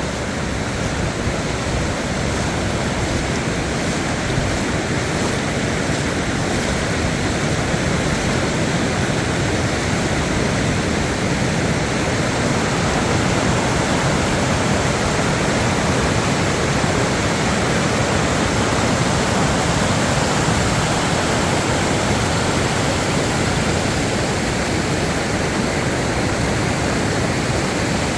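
Rain-swollen creek in flood, its fast water rushing in a steady, loud roar.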